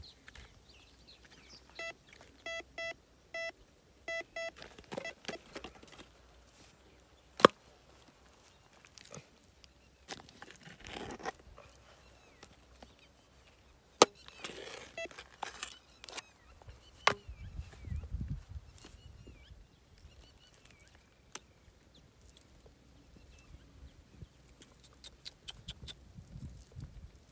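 Metal detector giving a run of short, evenly pitched beeps, the signal of a metal target under the ground. Then dry, cracked clay is dug and broken out by stick and hand: scraping and crumbling with a few sharp knocks, the loudest sounds.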